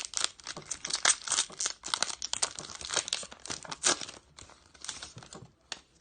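Foil Pokémon card booster pack being torn open and crinkled by hand, a dense run of irregular crackles and rips that thins to a few scattered crinkles about four seconds in.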